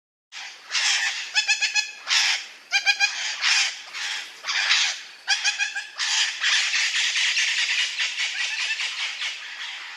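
Birds squawking: harsh, raspy calls with quick runs of pulsed notes, running together into a continuous squawking chorus in the second half.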